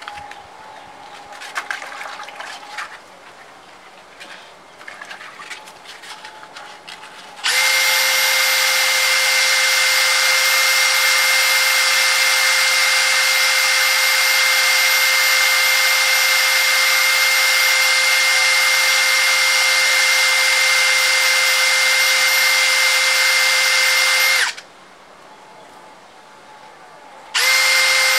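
Makita cordless drill running at a steady speed while a scooter clutch bell is sanded to take out its score lines: a steady whine over a hiss of abrasion. It starts after several seconds of quiet handling noises, stops for about three seconds, and starts again near the end.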